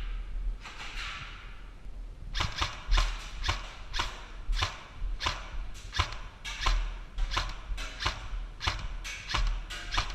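Footsteps at a steady pace, about two to three a second, each a dull thud with a sharp scuff, starting about two seconds in.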